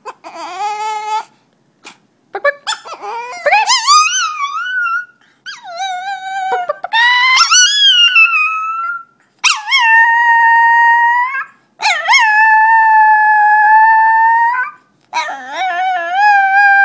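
Chihuahua howling in a series of long, high-pitched calls of a couple of seconds each, some wavering and sliding in pitch, others held almost steady, with short yips and brief pauses between them.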